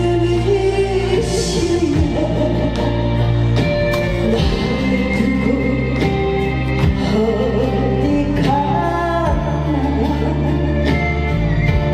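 A woman singing into a handheld microphone over a backing-track accompaniment, a Korean folk/trot-style stage song.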